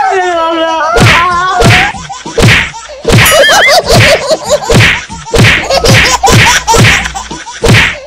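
Repeated whacks of a bamboo lathi striking two men, about two blows a second, with the men crying out in pain between the blows.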